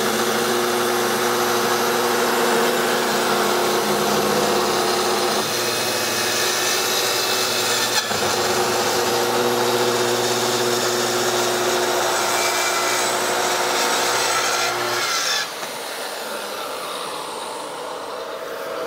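Festool plunge-cut track saw running on its guide rail, cutting a 45-degree miter through a beech butcher block countertop, with a dust extractor drawing through its hose. About fifteen seconds in, the saw's steady motor note stops and the quieter steady rush of the extractor carries on.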